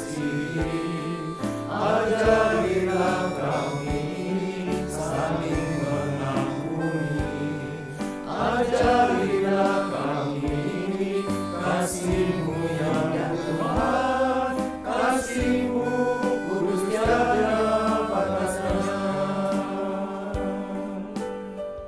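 Men's choir singing a hymn in Indonesian, with sung notes held and moving throughout.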